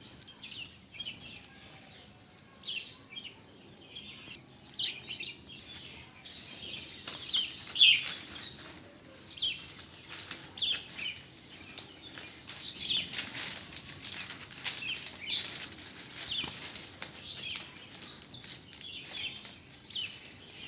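A group of small birds chirping busily: short, high chirps overlap several times a second, mixed with brief fluttering of wings.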